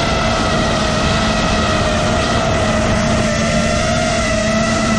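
FPV quadcopter's four brushless motors (T-Motor F40 Pro 3, 2400KV) spinning 5-inch props, a steady whine with only slight shifts in pitch over a rushing hiss of air, heard from on board the craft.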